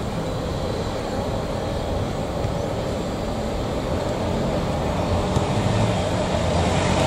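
Steady outdoor background rumble with no distinct events, growing slightly louder near the end.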